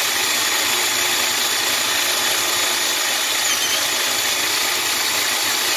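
Small benchtop metal lathe running steadily, spinning a NEMA 23 stepper motor that is being used as a generator: an even mechanical whirr with a faint high whine over it.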